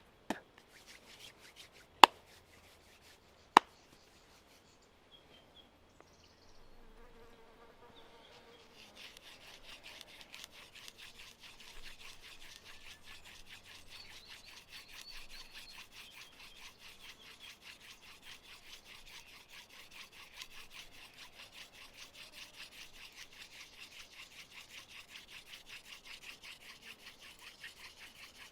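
Two sharp knocks, then a hand-drill fire set being worked: a grass tree (xanthorrhoea) spindle spun back and forth between the palms and grinding into a silver wattle hearth board. It makes a rapid, rhythmic wood-on-wood scratching that builds up steadily after the first few seconds.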